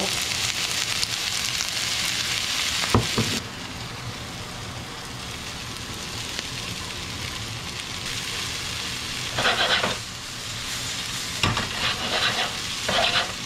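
Diced onion, red bell pepper and celery sizzling in olive oil in a hot frying pan as they sweat. The sizzle drops to a softer hiss about three and a half seconds in, just after a sharp knock. Near the end a spatula scrapes and stirs the vegetables in the pan.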